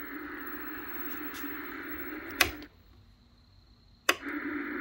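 Steady hiss from the speaker of a 1974 Sears solid-state colour TV. It cuts off with a switch click about two and a half seconds in, and a second click a second and a half later brings it straight back: the set's instant-on power-up.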